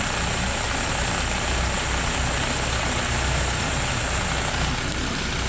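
2000 Saturn engine idling with an uneven, pulsing low rumble, a misfire that makes the motor shake.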